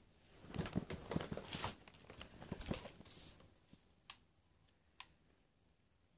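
Close rustling and handling noise for about three seconds, then two short, faint clicks about a second apart.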